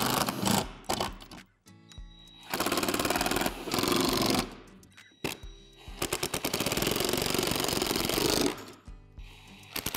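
Ridgid cordless impact driver hammering screws home, in two runs of about two seconds each with a short pause between, over background music.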